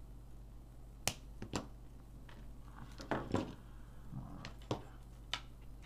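Side cutters snipping through brushless motor wires, with about half a dozen sharp snips and clicks, the loudest about a second in.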